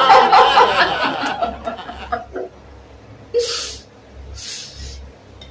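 A woman laughing, muffled behind her hands. The laugh fades out about two seconds in and is followed by two short breathy puffs.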